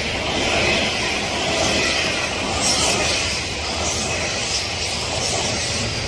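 Odakyu 8000 series electric commuter train passing close by: a steady rumble of wheels on rail, with hiss, as the cars run past.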